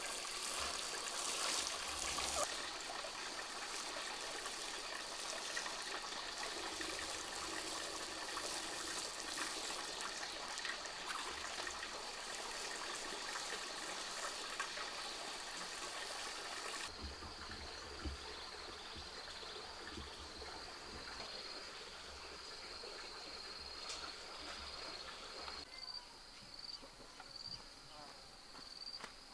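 Water from a garden hose spraying and splashing onto soil and seedlings. About two-thirds of the way through, this gives way to insects chirping in a steady, pulsing high trill, with a few light footsteps near the end.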